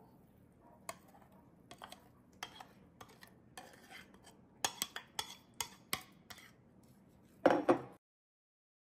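A spoon knocking and scraping against a glass dish while chili sauce is stirred into chopped nopales: scattered short clicks, busiest around the middle, with a louder burst near the end before the sound cuts off.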